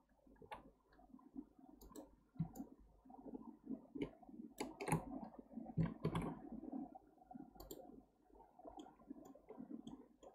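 Irregular clicks of a computer mouse and keyboard, sharp and separate, some bunched close together near the middle.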